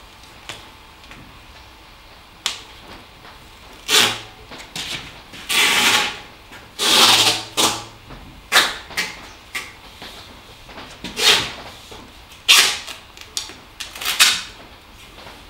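Adhesive tape being pulled off its roll in about ten short, irregular pulls as it is wrapped around the seam between the lid and boiler of a copper pot still, sealing it so no vapour escapes.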